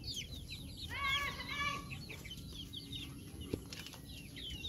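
Chickens peeping and clucking: many short high chirps, with a longer call about a second in. A single sharp tap about three and a half seconds in.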